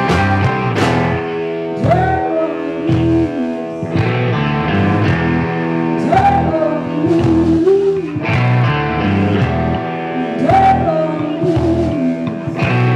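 Live blues-rock band playing: electric guitars, bass guitar and drums, with several held notes sliding up in pitch.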